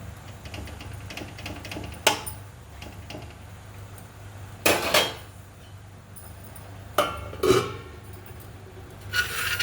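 Metal kitchen utensils and pots clanking: a handful of sharp clinks and knocks a couple of seconds apart, over a steady low hum.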